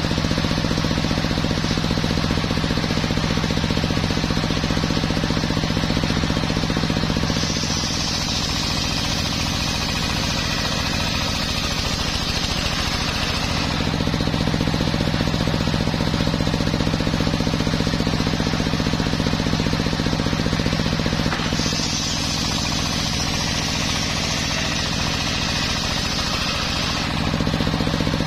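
Homemade circular sawmill's large blade ripping a teak log. The machine runs with a steady hum, and twice, each time for about six seconds, the blade cuts into the wood with a loud high hiss while the hum drops a little under the load.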